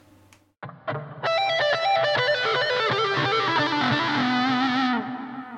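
Distorted electric guitar, a Dean Deceiver through a Blackstar ID60 amp, playing a fast minor-pentatonic lick. A few picked notes come about half a second in, then a rapid run of notes that ends on a held low note near the end.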